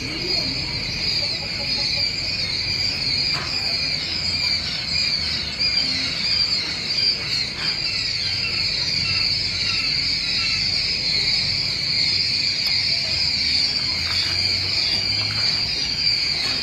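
Dense, continuous high-pitched peeping of many quail chicks together, with a low hum beneath.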